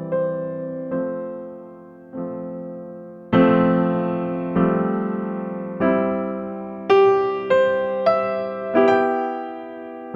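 Background music: slow, gentle electric piano playing single notes and chords, each struck and left to fade.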